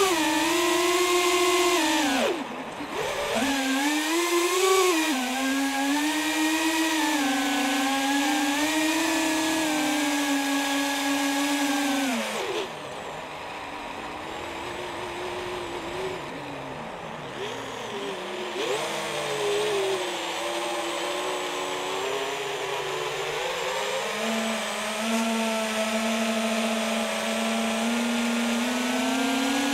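FPV quadcopter's brushless motors and propellers whining, heard from the onboard camera, the pitch rising and falling with the throttle. The throttle drops off sharply about two seconds in, and from about twelve seconds in the whine runs quieter and lower for several seconds before climbing back to a steady pitch.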